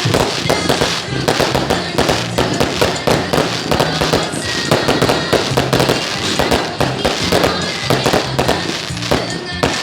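Fireworks going off in a rapid, irregular run of sharp bangs and cracks, many close together, with music playing underneath.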